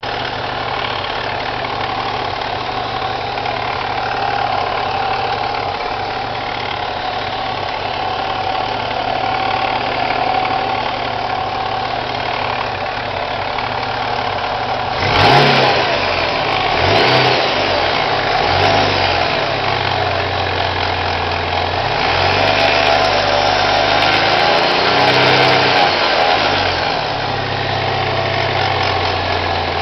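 Chevrolet Cavalier Z24 engine with an M45 supercharger idling steadily, then revved in a series of short throttle blips from about halfway through. It carries a strange noise that the owner places in the pulley or timing-chain area.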